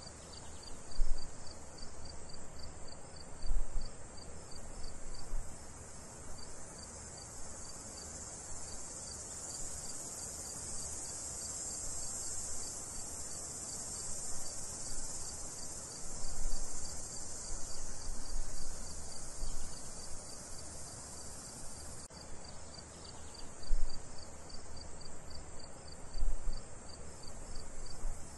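Crickets chirping steadily: a dense high trill with a fast, even pulse. Occasional low thumps, several times.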